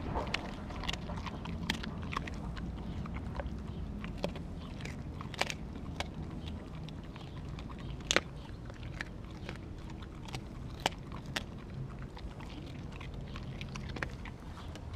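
A dog chewing and biting a piece of raw meat, giving irregular sharp wet clicks and crunches over a steady low background noise.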